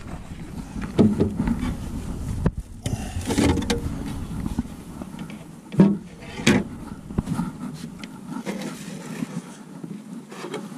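Wind rumbling on the microphone, with scattered knocks and rustles as a crappie and a clear plastic sleeve are handled in an aluminium boat; the sharpest knock comes about six seconds in, and the rumble drops away about eight seconds in.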